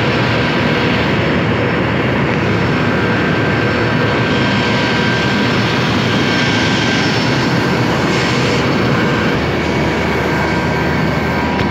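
Steady, loud jet-turbine noise of airliners at the stand: an even rush with several constant high whining tones.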